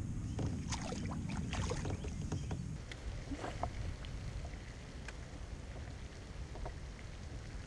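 Small splashes and knocks at the side of a kayak over a low wind rumble on the microphone. The rumble drops away about three seconds in, leaving quieter water sounds and a few scattered ticks.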